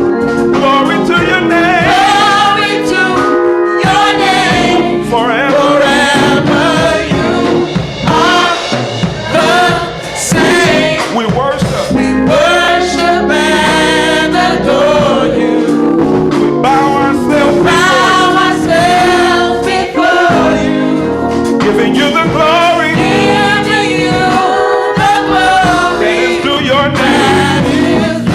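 Gospel worship song: voices singing over instruments holding sustained chords.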